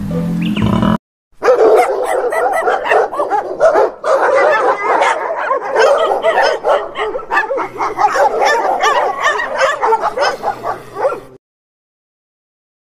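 Dogs barking and yipping in quick, overlapping bursts as they play-fight, for about ten seconds before breaking off suddenly.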